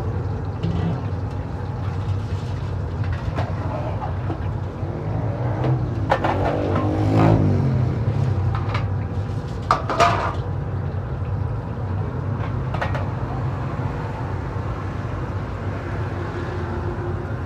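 A steady low rumble with scattered clinks and knocks; a louder swell with shifting pitch passes about six to seven seconds in, and two sharp knocks come about ten seconds in.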